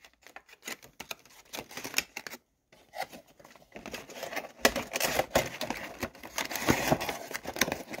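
Clear plastic bag crinkling and rustling as it is handled, with small irregular clicks and taps; sparse at first, then denser and louder over the second half.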